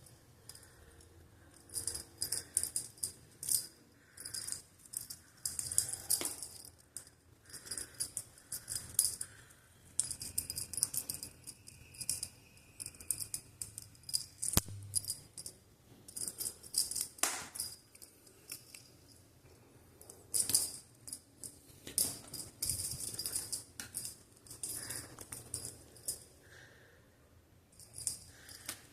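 A small jingle bell rattling in short, irregular bursts again and again, with a few sharp clicks in between.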